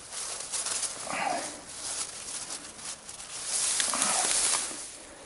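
Reeds and tall grass rustling and brushing close against the microphone as they are pushed through and handled. The rustling rises briefly about a second in and is loudest for about a second near four seconds in.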